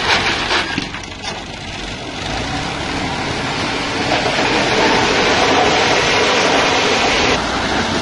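Farm tractor's diesel engine running under load while its front blade pushes crushed stone, the stones grinding and clattering. It grows louder about two seconds in.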